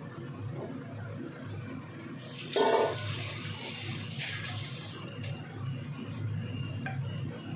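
Shrimp sizzling in a wok over a steady low hum. A short, louder burst of sound comes about two and a half seconds in.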